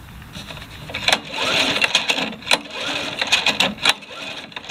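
Honda GVC140 lawn mower engine being turned over by hand for a spark test, its plug out and grounded against the valve cover. A mechanical clatter with a run of sharp, irregular clicks starts about a second in.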